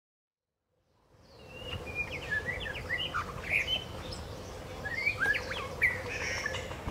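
White-rumped shama singing: two bursts of quick, varied whistled phrases, the first about a second and a half in and the second near the end. The sound fades in from silence about a second in, over a steady background hiss and a faint hum.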